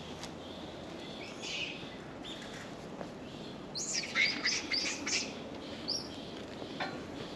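High, shrill animal calls. A few faint ones come early, then a burst of quick calls falling in pitch about four seconds in lasts about a second and a half, and a short call follows near six seconds, over steady low background noise.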